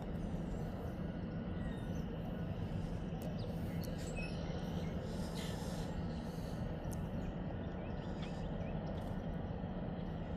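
Steady low hum under a constant rushing noise, with a few faint high chirps.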